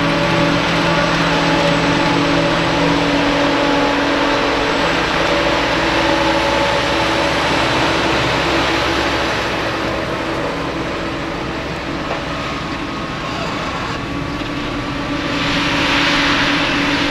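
Heavy farm diesel engines of a forage harvester and its haul tractor running steadily at working load while chopping grass, with a hiss of machinery and crop over the engine tone. The sound eases a little in the middle, and a brighter hiss swells near the end.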